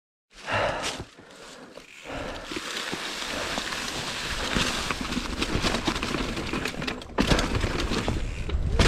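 Mountain bike being ridden over a rough dirt-and-rock trail: tyres rolling and crunching, the bike rattling with many small knocks. It starts a moment in with a short loud burst and grows louder from about seven seconds in.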